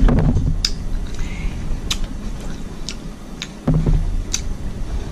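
Close-miked chewing of seafood boil: wet mouth and lip-smacking sounds with scattered sharp clicks, over a low rumble.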